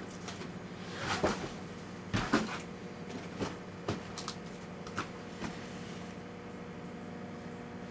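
Microwave oven running with a steady hum while a toner cartridge burns inside, giving a string of irregular pops and crackles, loudest in the first half.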